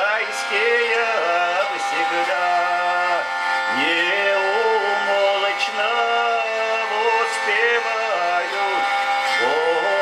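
A man singing a Russian spiritual verse in slow, gliding phrases over a hurdy-gurdy, whose cranked wheel keeps a steady drone sounding beneath the voice.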